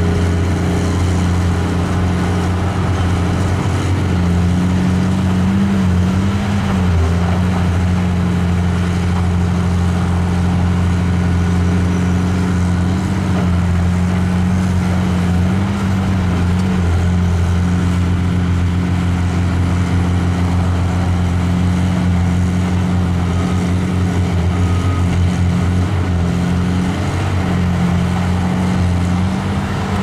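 CAT hydraulic excavator's diesel engine running steadily under working load while it digs mud, its low drone shifting slightly in pitch a few times.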